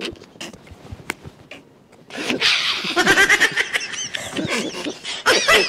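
Men laughing heartily, breaking out about two seconds in with rapid, repeated bursts.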